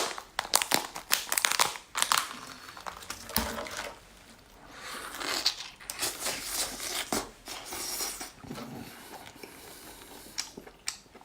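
Lobster shell being cracked and pulled apart by hand at the head: a long run of sharp snaps, crackles and tearing.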